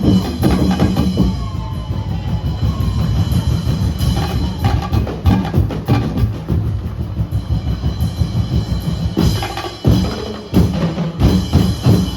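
Street-dance percussion band playing a fast, driving beat on bass and snare drums, with heavier accented hits in the last few seconds.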